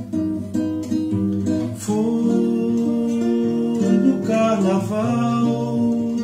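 Nylon-string classical guitar playing plucked chords that ring and change every second or two.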